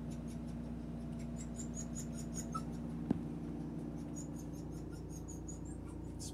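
Steady low machine hum with several held tones. Over it come three runs of rapid, high-pitched chirps, about seven a second and each run lasting about a second, plus one sharp click about three seconds in.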